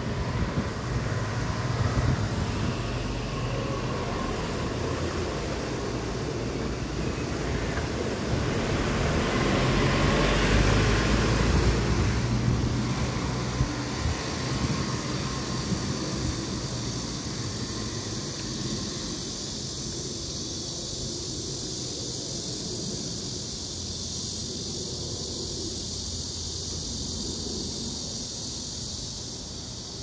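Low rumble of passing traffic that swells to its loudest about a third of the way in, then fades to a steady background hiss.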